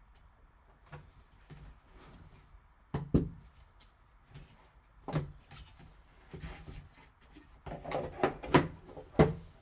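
Cardboard card box and its foam insert being handled: a few sharp knocks and rustles, then a quick run of knocks and taps near the end as the box lid is pressed shut.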